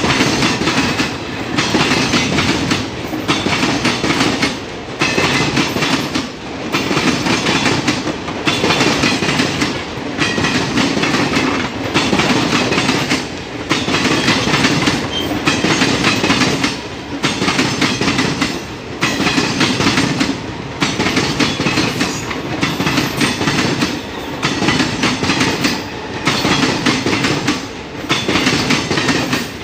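Indian Railways passenger coaches rolling past on the track: a continuous loud wheel-on-rail rumble with clickety-clack over the rail joints, swelling and dipping in a regular beat about every second and a half.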